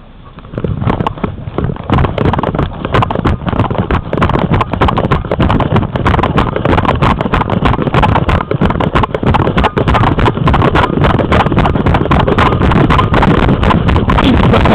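Wind buffeting a head-strapped camera's microphone, with constant jolting knocks and rattles, as the wearer moves fast over grass behind running dogs. The noise builds over the first second or two and then stays loud.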